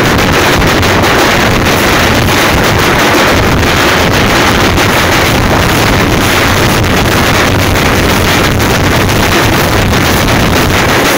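A troupe of thappu frame drums beaten with sticks, playing a fast, dense, unbroken rhythm. The drumming is very loud and distorted.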